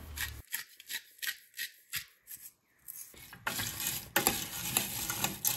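Hand salt grinder cracking pink Himalayan salt in short twists, about three a second, then a spoon stirring oil-coated pumpkin seeds in a stainless steel saucepan, a dense rattle of seeds with a couple of clicks of the spoon on the pot.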